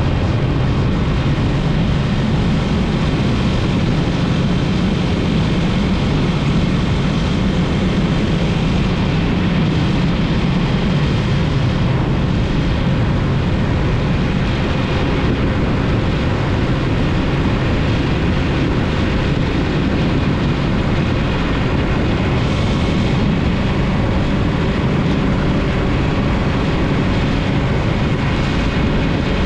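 Yamaha MT-03 motorcycle engine running steadily while riding, mixed with a constant rush of riding noise.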